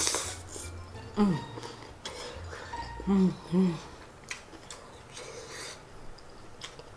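A woman's wordless sounds while eating a hot fried chicken wing: a falling "ooh" about a second in, then two short hums a little after three seconds, with faint mouth and breathing noises between. The sounds are reactions to the food being very hot.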